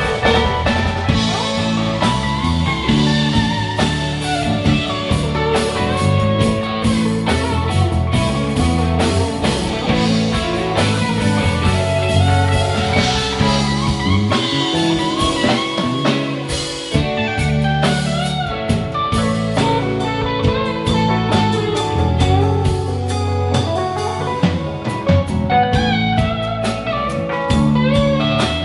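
A live rock band playing an instrumental passage: electric guitar lines over bass, drum kit and keyboard, with no singing.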